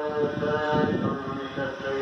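Sikh devotional chanting: a voice holding long, slightly wavering notes.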